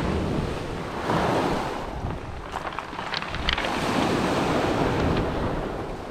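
Sea waves washing onto the shore in slow swells, with wind buffeting the microphone. A few brief ticks come near the middle.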